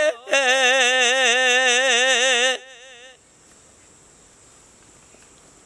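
A man singing unaccompanied, holding one long note with a wide vibrato at the end of a line of Punjabi Sufi verse. The note stops about two and a half seconds in, leaving a faint background with a thin steady high tone.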